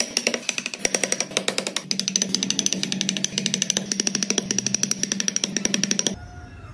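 A chisel cutting into hardwood with rapid, evenly spaced tapping, about ten strikes a second, that stops abruptly about six seconds in.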